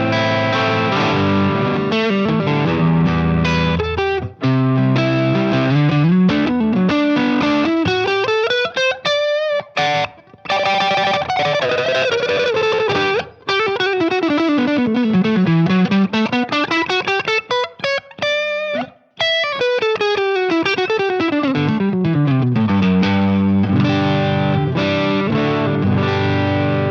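Maybach Lester 59 electric guitar with humbucker pickups played through an overdriven, crunchy amp tone. It opens with held chords, then moves into fast single-note runs that climb and fall again and again, with a few short breaks.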